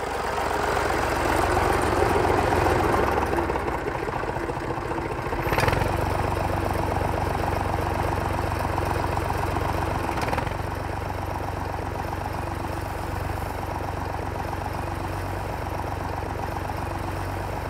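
Small tractor engine running steadily as it pulls a shank-and-sweep cultivator through the furrows. Two short clicks come about five seconds apart.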